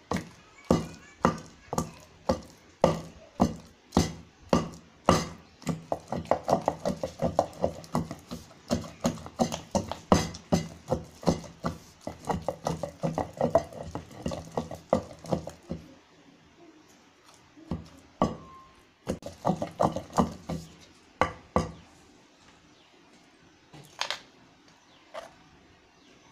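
Pestle pounding gongura leaf and dried red chilli chutney in a stone mortar: regular strikes about two a second with quicker, lighter strokes between them, thinning after about sixteen seconds to a short flurry and a few single strikes as the paste is nearly done.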